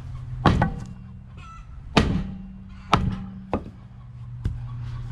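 Sledgehammer blows against a rust-stuck wheel on a Ford F-150, struck to break it loose from the hub: five hits about a second apart, the first three hardest and the last two lighter, over a steady low hum.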